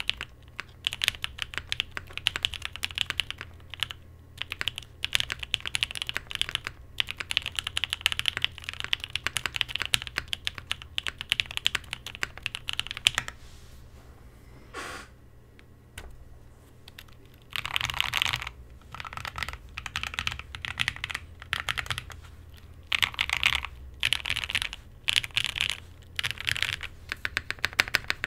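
Mechanical keyboard with stock Gateron Cream Soda linear switches, TX stabilizers, a top-mounted POM plate and GMK Devoted keycaps, with paper-towel and force-break mods, being typed on fast: keystrokes clack in rapid streams. About halfway through the typing stops for a few seconds with a single keystroke, then resumes in bursts.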